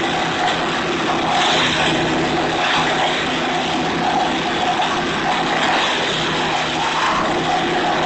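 Petrol-engined Jansen wood chipper running steadily at working speed, its noise swelling every second or two as branches are fed in and shredded.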